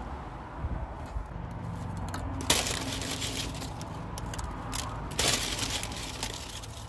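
Plastic bag of prawn crackers crinkling and rustling as the crackers are taken out and laid on a plate, with two louder crinkles about two and a half and five seconds in. A low steady hum sits underneath.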